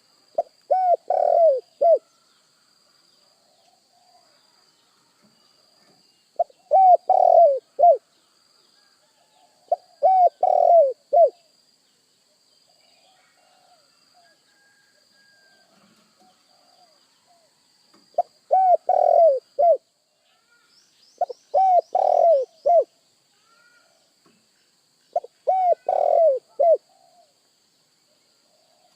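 Spotted dove (tekukur) cooing: six phrases of four or five low notes each, separated by pauses of a few seconds. A faint steady high tone runs underneath, and a brief high chirping comes about 21 seconds in.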